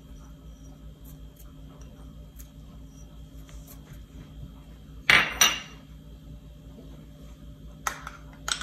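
A single loud clatter of kitchenware about five seconds in, as a small dish is set down, ringing briefly. A couple of lighter clicks follow near the end over a low steady hum.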